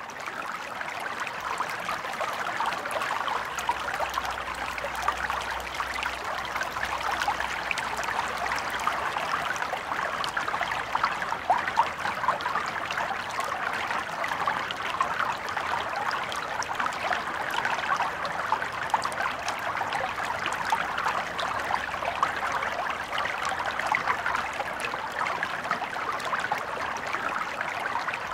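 Steady trickling, rushing noise like running water, thick with fine crackles. It fades in at the start and then holds even.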